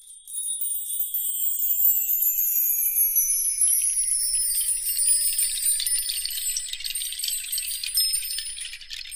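High-pitched shimmering chimes and jingling, with several high tones sliding slowly down in pitch throughout.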